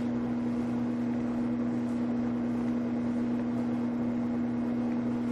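A steady low hum at one constant pitch, with no other sound standing out.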